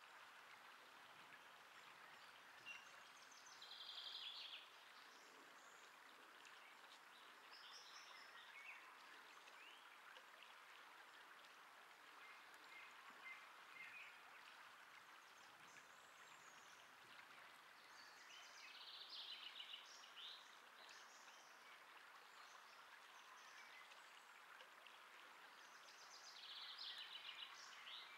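Faint outdoor ambience: a steady hiss with a few short phrases of songbird song, the last near the end.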